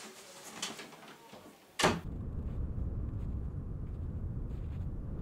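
Soft rustling and scraping of a jacket being handled, then a sudden loud hit about two seconds in, followed by a steady low rumble.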